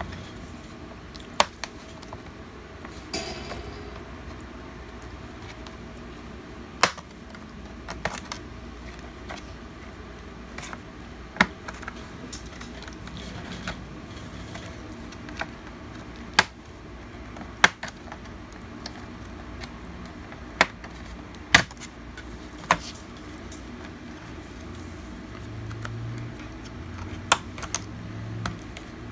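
About a dozen sharp, irregularly spaced clicks and taps of hard plastic and small tools as an HP 15 laptop is being taken apart by hand, over a steady low hum.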